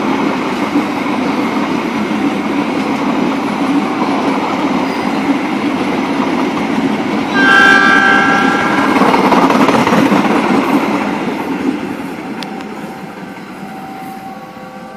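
Diesel-hauled express passenger train of stainless-steel coaches rolling past at speed, its wheels running on the rails, with a horn blast of about a second, about seven seconds in. The sound fades over the last few seconds as the last coach draws away.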